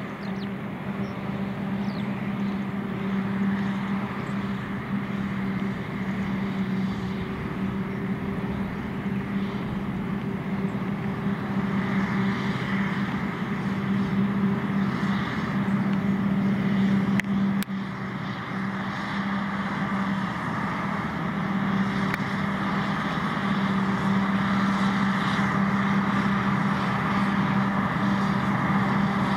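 Krone BigX 770 self-propelled forage harvester chopping maize under load: a steady mechanical drone with a strong low hum over a wide rush of noise, with the tractors running alongside it. A click and a brief dip in level come about two-thirds of the way through.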